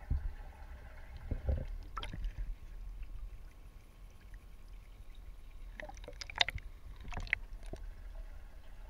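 Pond water splashing and sloshing around a camera that is lifted out at the surface and dipped back under. Short sharp splashes and knocks come in clusters about a second and a half in, at two seconds, and again between six and seven and a half seconds, over a steady low rumble.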